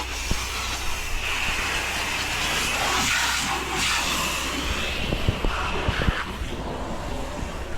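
Pressure washer running steadily, with the hiss of its water spray rising and falling as the wand works.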